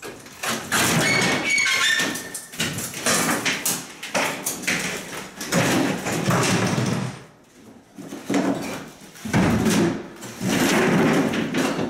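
Wooden cabinet panels being wrenched off and pulled apart during demolition: wood cracking and scraping, boards knocking together, in several loud bouts, with brief squeaks about a second in.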